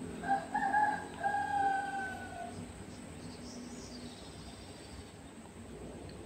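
Rooster crowing once: a drawn-out call of about two seconds that droops at the end, over a low steady road-noise hum.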